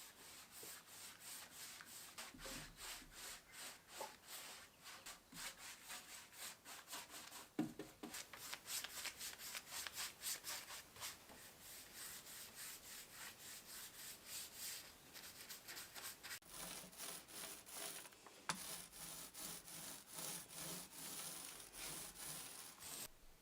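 Hand sanding of wood: sandpaper rubbed back and forth in quick, even strokes, about two a second, with a brief pause about two-thirds through. It stops abruptly near the end.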